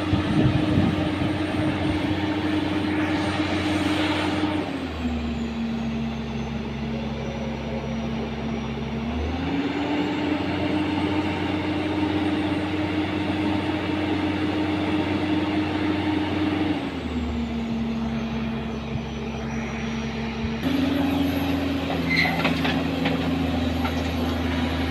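Excavator's diesel engine running steadily, its speed dropping about five seconds in, rising again near ten seconds, and dropping again near seventeen, with an abrupt change near the end.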